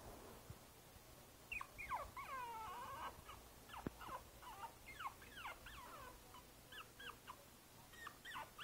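Five-week-old Boston Terrier puppy whimpering: a run of short, high, squeaky cries that slide up and down in pitch, starting about a second and a half in. There is a single knock about four seconds in.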